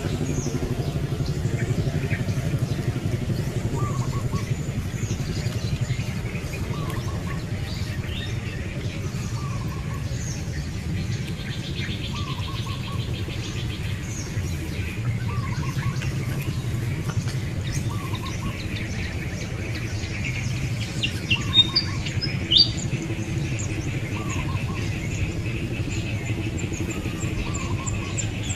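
Outdoor woodland ambience: a bird repeats a short two-note call about every one and a half to two seconds over a steady low rumble and faint insect trilling, with a few sharp clicks a little past the middle.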